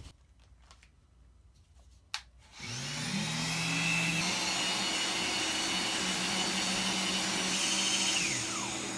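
Festool Pro 5 LTD random-orbit sander and its dust extractor start together about two and a half seconds in, rising to a steady hum with a high whine as the sander works a wood panel. Near the end the sander is switched off and its whine falls away while the extractor keeps running. The sander runs smoothly after Festool's repair of its bearing flange, with the extractor's suction turned down.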